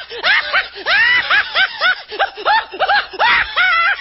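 High-pitched laughter sound effect: a quick string of snickering laughs, each rising and falling in pitch, about three a second.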